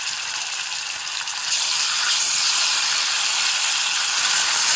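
Sliced onions and ginger-garlic paste sizzling in hot ghee and sesame oil in an aluminium pressure cooker, a steady hiss that gets louder about a second and a half in.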